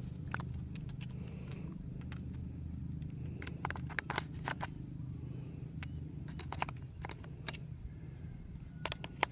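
Small plastic clicks and scrapes as batteries are fitted into a toy gun's plastic battery compartment, scattered irregularly, over a steady low hum.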